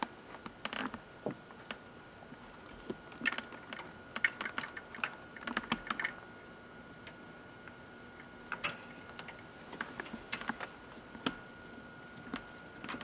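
Irregular light clicks and taps in quick clusters from a cat scrambling through an obstacle course, its claws catching on the shoes, clothes, hangers and box. A faint steady high-pitched tone lies underneath.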